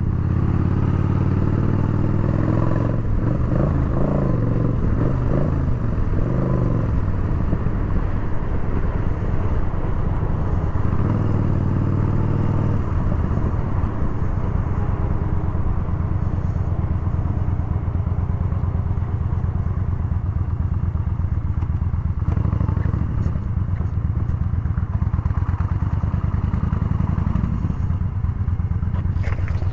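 Yamaha Bolt's air-cooled V-twin engine running on the road. Its pitch rises and falls over roughly the first dozen seconds as it speeds up and slows, then holds steady.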